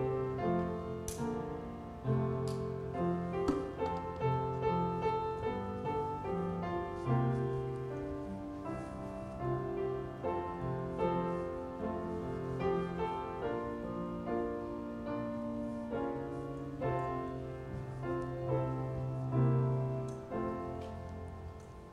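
Piano playing a slow instrumental piece, fading out near the end.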